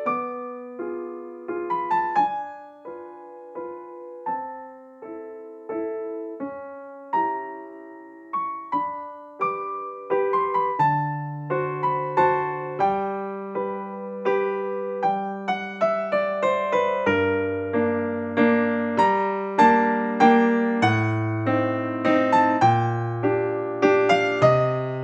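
Background piano music: a slow melody of single struck notes that ring and fade, with low bass notes joining about eleven seconds in and the playing growing fuller.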